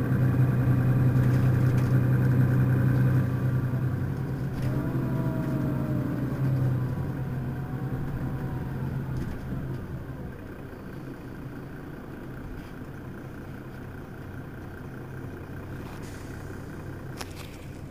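Mercedes-Benz Citaro city bus running, with a strong steady low engine hum and gliding whine notes. The hum fades after about seven seconds, leaving a quieter low rumble.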